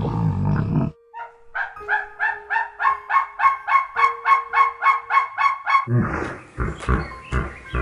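A bird giving a rapid series of short honking calls, about four a second for some four seconds. A loud low animal call ends about a second in, and low grunting pulses follow near the end.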